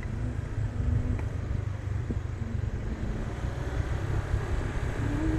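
Riding a motorbike along a road: the engine runs with a steady low rumble of wind buffeting the microphone.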